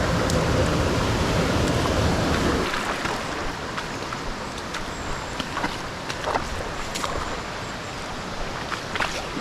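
Rushing water of a mountain trout stream, a steady hiss of running water. It is heavier and rumbling for the first few seconds, then quieter, with a scattering of small sharp clicks.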